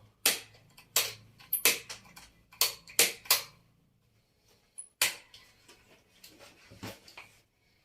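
Sharp clicks and knocks, about eight, spaced irregularly, over a faint low hum. This is a Crown angle grinder being switched and handled on a test board without running up steadily: an intermittent power cut-out that the repairman puts down to a sticking carbon brush.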